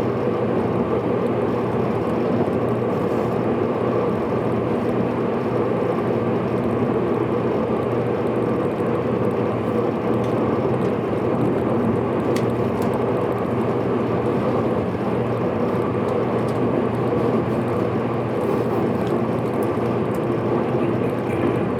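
JR Kyushu 783 series electric train running at speed, heard from inside the front car: a steady rumble of wheels on rail with a faint hum. There is a single short click about twelve seconds in.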